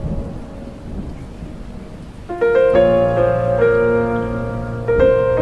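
Rain falling, with a low rumble of thunder for the first two seconds or so. Then soft piano music comes in, note by note, over the rain.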